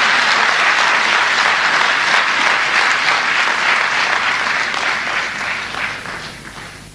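Large seated audience applauding, the clapping dying away over the last two seconds.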